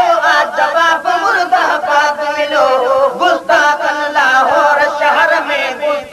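Sindhi naat chanted with voices, a devotional song in praise of the Prophet, the sung melody carrying on without a break.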